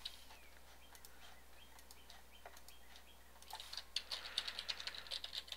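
Computer keyboard typing, faint: a few scattered clicks, then a quick run of keystrokes from about three and a half seconds in.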